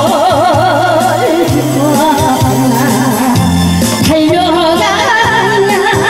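A woman sings a Korean trot song with heavy vibrato into a microphone, amplified over a karaoke backing track with a steady stepping bass line.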